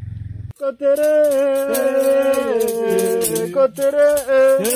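A song starts about half a second in: a voice singing long, sliding notes over the steady shaking of a rattle. Before it there is a brief low hum that cuts off.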